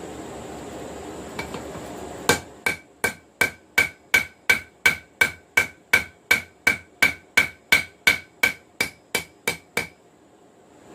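A hand hammer striking hot steel on an anvil while forging a knife blade: a steady run of about twenty blows, roughly three a second, each with a short metallic ring from the anvil. A steady rushing noise runs for about two seconds before the hammering starts.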